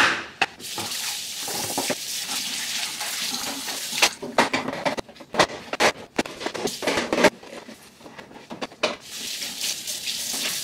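Kitchen tap running into a sink while a fridge bin is rinsed under it, with a quick run of knocks and clatters in the middle as the bin is handled against the sink.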